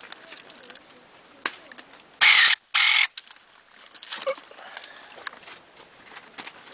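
Electric pruning shears running in two short buzzing bursts about half a second apart, each cutting off sharply, as the blade closes through a dragon fruit stem; a sharp click a little before and light rustling and ticks around them.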